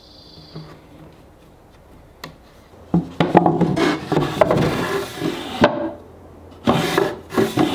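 A wooden drawer sliding in and out of a cherry nightstand, wood rubbing on wood along its runners. There is a knock about three seconds in, then a long slide, then a second shorter slide near the end.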